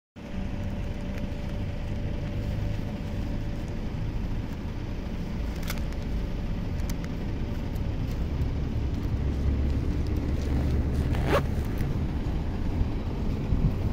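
Street ambience with a steady low traffic rumble, growing slightly louder toward the end as a trolleybus approaches.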